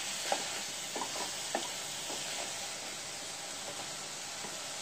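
Spiced mutton masala sizzling as it fries down almost dry in a pan, its added water absorbed. A wooden spatula gives a few short scrapes against the pan in the first couple of seconds, then only the steady sizzle.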